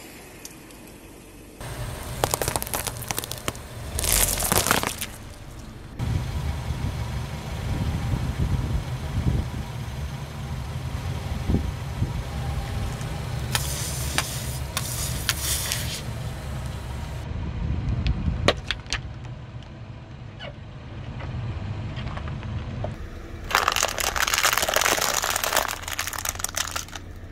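A car's engine running low while its tyre rolls over and crushes brittle objects: several loud bursts of crunching and crackling, and a run of sharp cracks and snaps about two-thirds of the way through. The sound changes abruptly several times.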